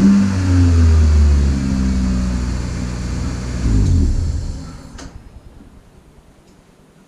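Toyota Celica's four-cylinder engine running through a newly fitted aftermarket exhaust, blipped up in revs at the start and again almost four seconds in. It then dies away, with a sharp click about five seconds in.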